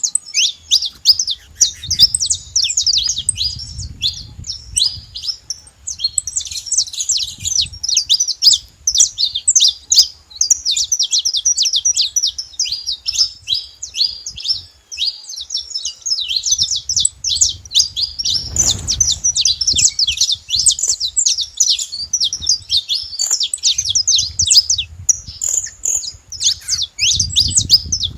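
Saffron finches singing: a continuous, rapid stream of high, sharp chirps and trills.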